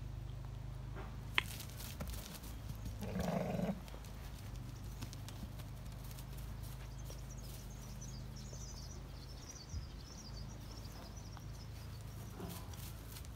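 A Poll Dorset sheep bleats once, a short call about three seconds in, over a low steady hum.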